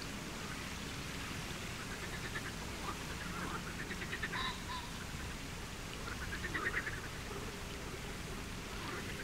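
Water birds calling in three short bursts of rapid, pulsed calls over a steady low rumble of outdoor background noise.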